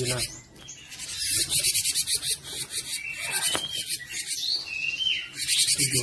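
Cinereous tit (gelatik batu) giving a fast, harsh, rasping chatter, with a few short whistled notes around the middle.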